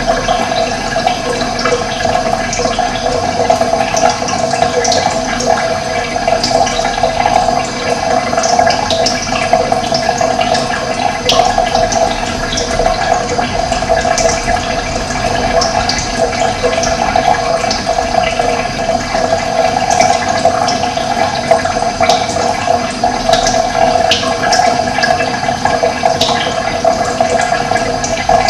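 Steady running water, with small birds chirping briefly now and then.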